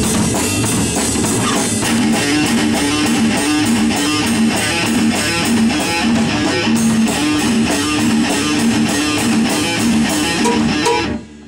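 Rock band playing: strummed electric guitar over drum kit and bass, with a repeating two-note low riff. The music stops abruptly near the end.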